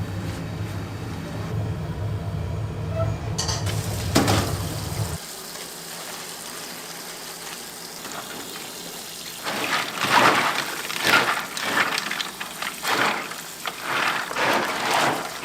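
A steady low hum for the first few seconds stops abruptly. After a quieter stretch come repeated bouts of kitchen clatter, pots and utensils knocking, with frying noise.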